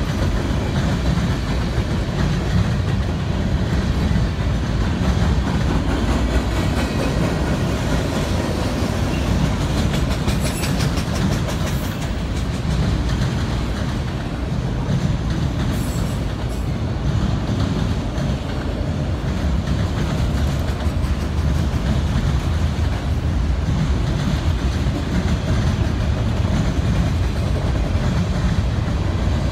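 A freight train's cars rolling past, with a steady low rumble of steel wheels on the rails that goes on without letup.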